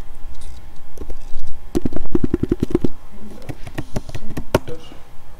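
Typing on a computer keyboard, keys clacking: a quick run of about ten strokes a little under two seconds in, then scattered single keystrokes.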